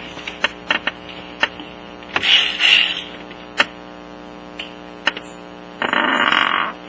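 Cylinder head bolts being turned by hand into a scooter's aluminium cylinder head: scattered small clicks and ticks, with two short scraping bursts, one about two seconds in and one near the end.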